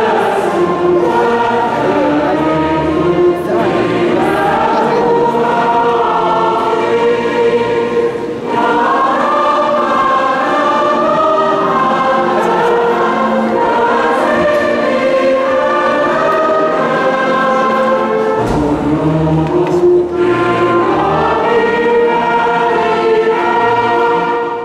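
Mixed choir singing with a symphony orchestra accompanying, strings including cellos and double basses, in sustained full harmony.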